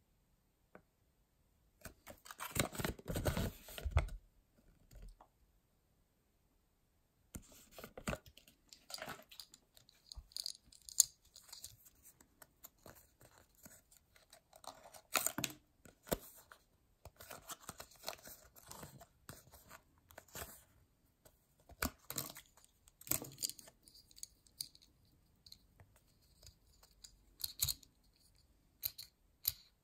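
Close-up handling noises. A paper instruction leaflet rustles for about two seconds near the start. After a pause come many small clicks, scratches and crinkles as a small plastic Kinder Surprise toy is handled and its parts are pressed together, with sharper clicks near the end.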